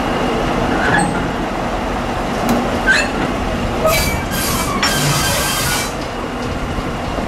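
A slow train rolling along the track, heard from on board: a steady low rumble of wheels on rail with a few sharp clicks, and two brief high screeches about four and five seconds in.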